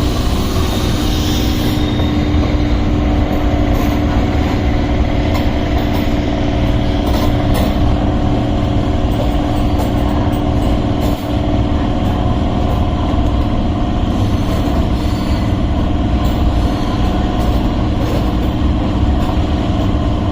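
Electric suburban train running, a steady low rumble with a constant droning hum.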